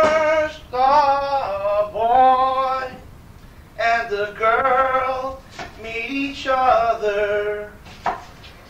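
Voices singing a melody in phrases of held, bending notes, with a short pause about three seconds in.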